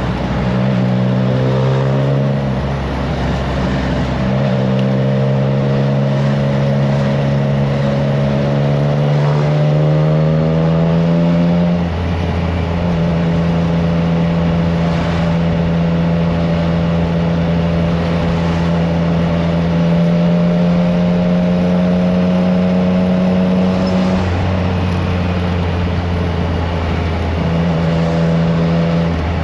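Triumph Trident 660's inline three-cylinder engine through an aftermarket FireTong exhaust, heard from the bike while riding. The engine pulls up through the revs, drops in pitch at a gear change about twelve seconds in, then runs at a near-steady speed. It eases off again about twenty-four seconds in.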